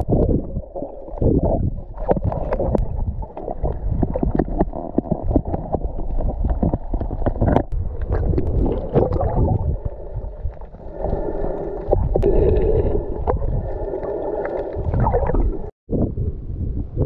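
Muffled underwater sound from a camera held below the surface: water movement and a low rumble with many small clicks and crackles, and a muffled steady hum of several pitches for a few seconds in the second half. Near the end the sound cuts out briefly and gives way to wind on the microphone.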